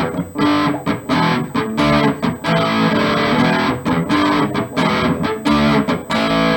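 G&L Legacy Tribute electric guitar with a Seymour Duncan Little '59 mini humbucker in the bridge position, played through an amplifier with the treble turned all the way down to 0. It plays a riff of short chords with brief stops between them.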